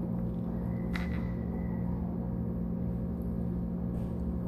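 A steady low hum, with one sharp click about a second in from plastic Lego pieces being pressed together.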